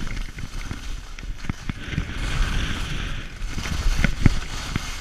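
Skis sliding and scraping over packed snow, with wind buffeting the microphone. The scraping hiss swells around the middle, and a few sharp knocks come about four seconds in.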